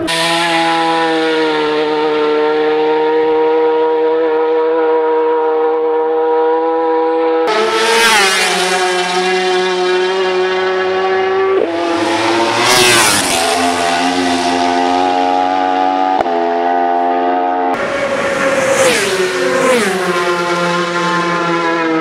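Racing motorcycle engines held at high, near-steady revs, in several cut-together clips. The pitch drops sharply as a bike passes, about thirteen seconds in and again near twenty seconds.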